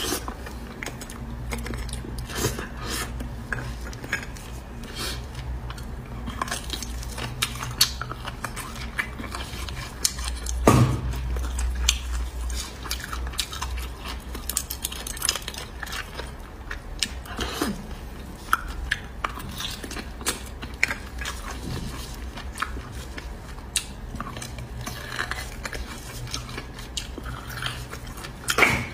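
A metal spoon scraping and clinking against braised beef marrow bones and the plate, with close-up chewing and biting of the soft marrow. A louder knock comes about eleven seconds in.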